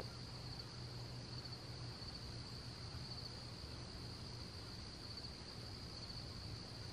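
Crickets trilling steadily in the field, one high continuous chorus, with a faint low steady hum beneath it.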